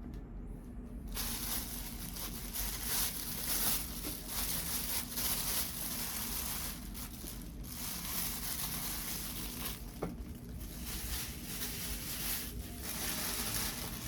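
Close crinkling and tearing of wrapping being handled, in uneven rustling surges with brief pauses and a single sharp click partway through.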